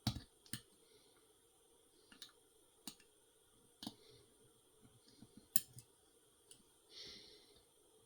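Lock pick and tension wrench working the pins of a Schlage Primus Everest cylinder: about seven sharp, irregularly spaced clicks, and a brief rasp near the end.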